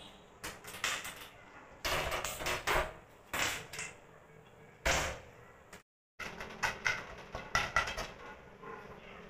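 Kitchen clatter of an aluminium pressure cooker and utensils being handled on a gas stove, with several short rasping bursts in the first half. After a break at about six seconds, quick light clinks and scrapes as a steel ladle stirs inside the cooker.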